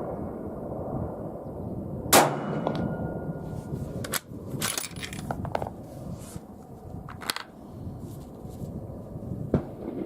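A suppressed subsonic 6.5 Creedmoor rifle shot through a Griffin Armaments Optimus suppressor, a sharp crack with a short ring, about two seconds in. Several smaller sharp metallic clicks follow.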